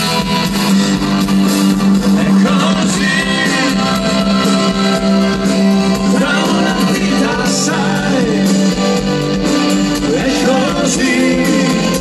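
A live rock band playing through a PA, with electric bass, acoustic guitar and keyboards under a held low note. A male singer's voice comes in a few times between the instrumental phrases.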